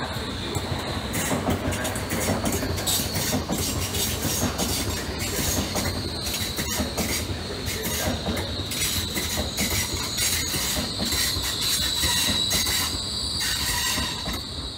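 SBB RABe 501 Giruno electric multiple unit passing: its wheels clatter over rail joints and pointwork, with a high steady wheel squeal. The sound falls away as the last car goes by near the end.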